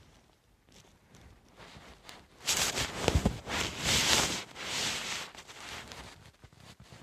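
Cat sneezing: a run of sharp, breathy bursts lasting about three seconds, starting about two and a half seconds in.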